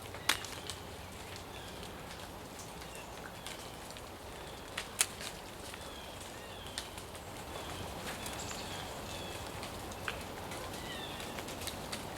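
Small birds giving short chirps over a steady rush of river water, with scattered sharp clicks, the loudest shortly after the start and about five seconds in.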